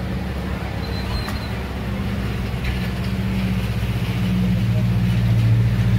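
Steady low engine drone running throughout, growing louder near the end.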